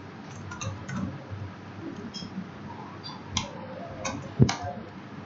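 Computer keyboard keystrokes as code is typed: scattered clicks, faint at first, with a few sharper, louder keystrokes between about three and four and a half seconds in.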